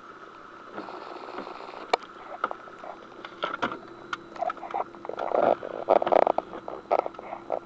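Suzuki Jimny driving over a rough track, heard from inside: a steady engine drone under many irregular knocks and rattles, which grow busier and louder from about five seconds in.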